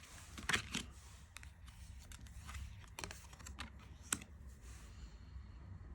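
Tarot cards being handled and laid on a table: a scattering of light, uneven clicks and taps.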